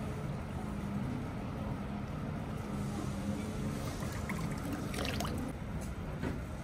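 Water trickling and splashing from a bamboo spout into a stone water basin, clearest about four to five seconds in, over a steady low background rumble.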